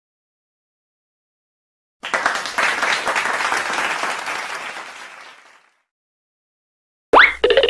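Applause sound effect: a few seconds of clapping that starts suddenly after a silent gap and fades away. Near the end a short musical jingle with a rising sweep begins.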